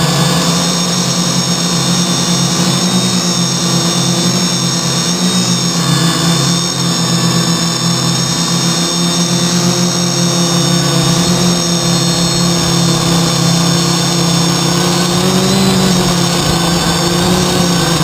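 Y6 multirotor's six brushless motors and propellers running steadily in flight, heard up close from a camera hard-mounted on the frame, with the pitch wavering a little as the throttle changes.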